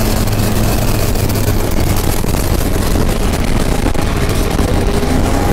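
Modified turbo diesel engine of a long-tail racing boat running flat out at speed: a loud, steady engine drone with a deep low note.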